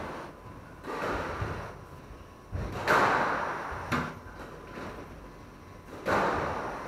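Squash ball being struck and smacking off the court walls: about five sharp hits a second or so apart, each ringing on in the court's echo. The loudest comes about three seconds in.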